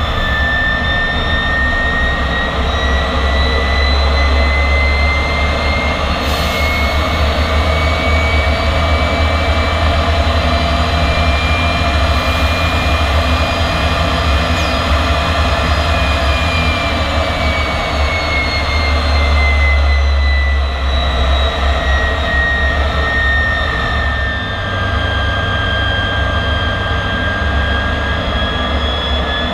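MiG-15's centrifugal-flow turbojet running steadily: a high whine climbs slowly in pitch through the first half, sinks again later on, and starts to climb once more near the end, all over a deep rumble.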